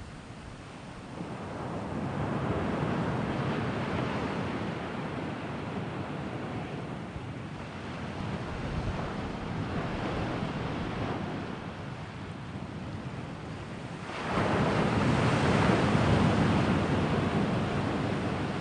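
Sea waves washing on the shore in slow swells that rise and ease, with the loudest surge coming in suddenly near the end.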